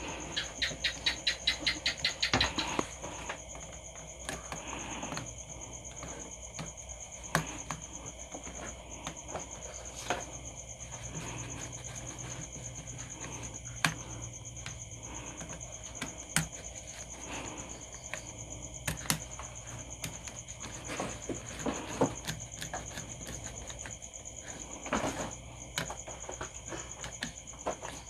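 Light clicks and taps of wires and a plastic switch-and-outlet module being handled as jumper wires are fitted to its terminals, with a quick run of clicks in the first couple of seconds. A steady high-pitched whine sounds underneath.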